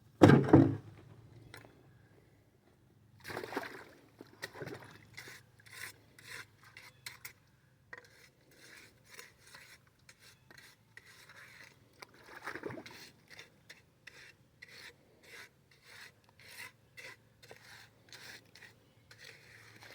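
A trowel scraping and smoothing wet concrete or mortar in repeated short strokes, about two a second in the second half, after a loud thump near the start.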